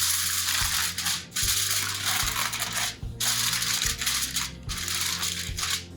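Aluminum foil crinkling as it is wrapped over a cake pan, in several stretches with short pauses between.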